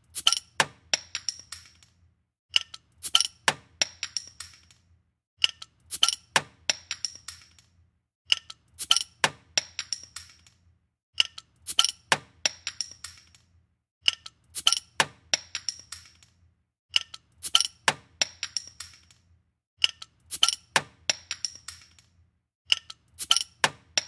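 A beer bottle being opened, looped: each time a quick run of sharp metallic clicks and glassy clinks with a brief high ring. The same clip repeats about every three seconds, eight or nine times.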